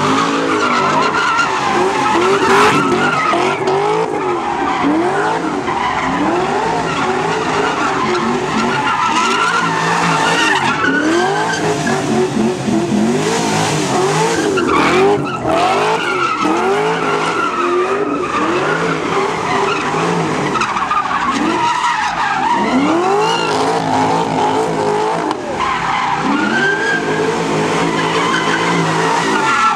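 Cars doing donuts: engines revving up and down over and over, with tyres skidding and screeching on the pavement.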